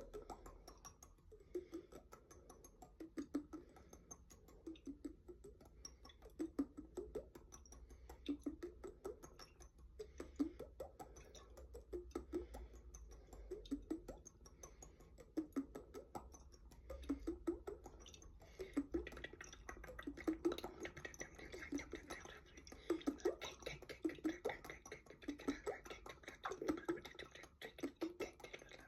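Glass jar with water in it being handled for ASMR: short, low watery tones that recur about once a second over a dense patter of light clicks.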